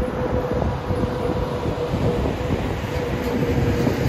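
Train running past close by: wheels rumbling on the rails, with a steady whine over it.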